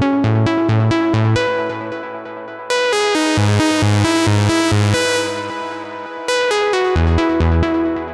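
Access Virus TI synthesizer playing its 'LD N-Saw' sawtooth lead preset: a bright, buzzy melodic line over evenly pulsing low bass notes. The phrase starts afresh and louder twice, about three and a half seconds apart.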